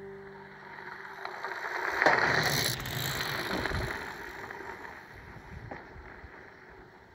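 Trek Checkpoint ALR 5 gravel bike's tyres crunching over a gravel road as it approaches and passes close by. The crunch is loudest about two seconds in, then fades as the bike rides away.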